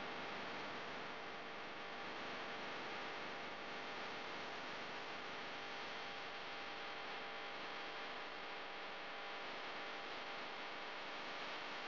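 Steady even hiss with a faint hum underneath, unchanging throughout, with no distinct knocks or calls.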